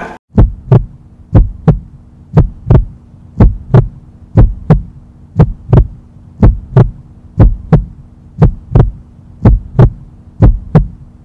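Heartbeat sound effect: paired lub-dub thumps repeating about once a second, over a steady low hum.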